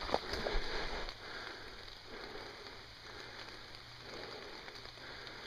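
Rain falling on woodland foliage and the forest floor, a steady patter, with a few sharp snaps in the first second.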